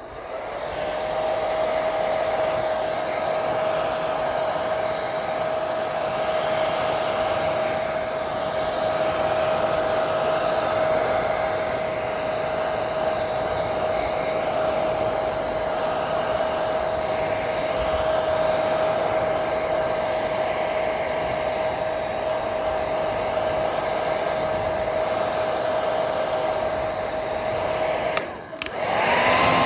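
Electric blow dryer running steadily: a rush of air with a steady motor whine. Near the end it cuts out for a moment and comes back with a higher-pitched whine.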